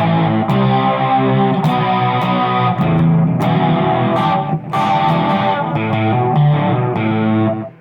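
Distorted electric guitar playing chords in a song demo, with a short break just before the end.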